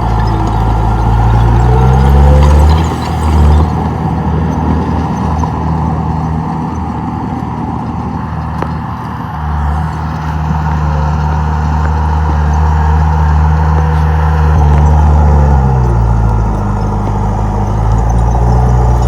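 Komatsu D31P crawler bulldozer's diesel engine working. Its pitch rises about two seconds in, holds steady, drops near the end and then climbs again, over a steady high whine.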